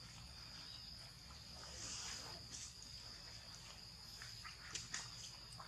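Insects droning steadily at one high pitch, with a few faint clicks near the end.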